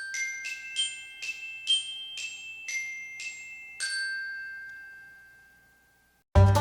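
A rising run of about ten bright, bell-like mallet notes like a glockenspiel, struck about every half second, the last one ringing out and fading away. Near the end, loud music with a beat starts.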